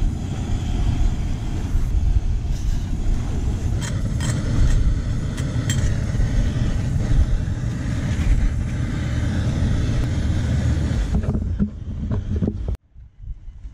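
Wind buffeting the microphone in a steady low rumble, with a few light clicks about halfway through; the rumble drops away abruptly near the end.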